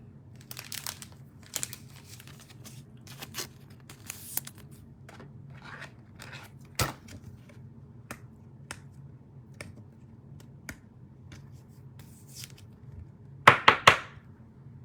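Cellophane trading-card pack wrapper crinkling and tearing and cards being handled: scattered short rustles and clicks, with a louder burst of rustling near the end.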